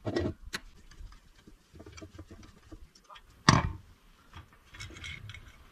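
Small metal clicks and knocks of a Suzuki K90 carburetor being handled and taken apart over a stainless steel tray, with two sharp knocks at the start and one loud clank about three and a half seconds in.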